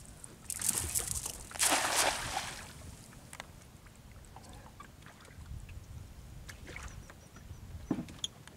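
A cast net thrown from a small boat hits the water in a hissing, splashing rush, loudest about two seconds in. After it, quieter water lapping and small knocks as the hand line is held.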